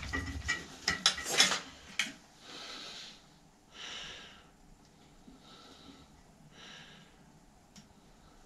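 A few sharp metal clicks and clinks of a tool working on a bicycle crank, followed by four soft, heavy breaths about a second and a half apart as the mechanic strains at it.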